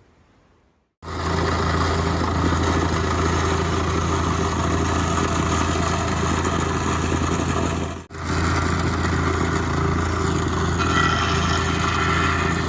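Small-engine compactor running steadily at full throttle, compacting the slab base, with a constant low hum and an even pulsing vibration. It starts about a second in and breaks off briefly about eight seconds in before carrying on.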